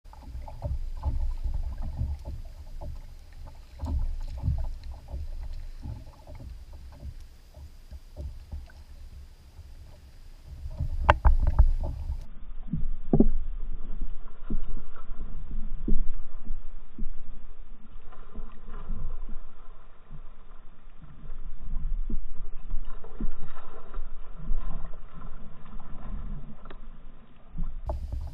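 Water lapping and slapping against a kayak's hull, with wind on the microphone and irregular knocks on the hull; one sharp knock about eleven seconds in.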